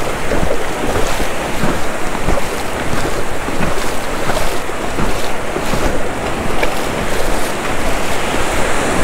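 Ocean surf breaking and washing up the beach, with wind gusting on the microphone.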